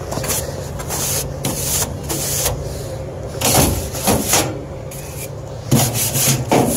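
Stiff brush scrubbing dust and debris off the inside of a gas-fired unit heater, in a series of irregular brushing strokes.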